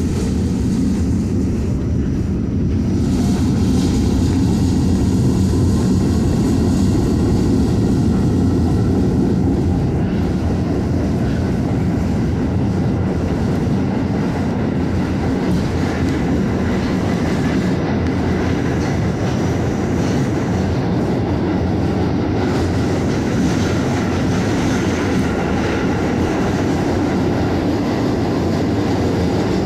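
R44 subway car on the Staten Island Railway accelerating and running, heard from inside the car: a steady rumble of wheels on the rails, with a rising traction-motor whine in the first few seconds.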